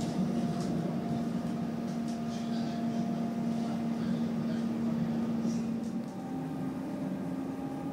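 Running noise heard from inside a moving electric passenger train: a steady hum over a rumble. The hum steps slightly higher in pitch about six seconds in.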